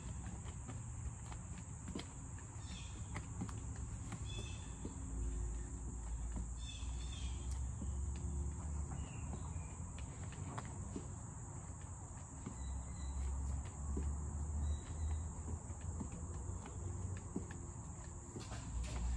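A steady high chirring of insects, with faint scuffs and taps of sneakers stepping on a concrete patio. An intermittent low rumble comes and goes underneath.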